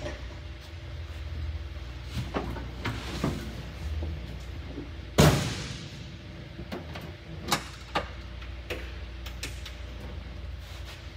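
The car door of a 1966 MG Midget shutting with a thud about five seconds in, among smaller knocks and clicks, over a steady low hum.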